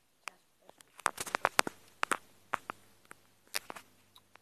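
Handling noise close to the microphone: a string of sharp clicks, taps and rustles, busiest about a second in and again about three and a half seconds in.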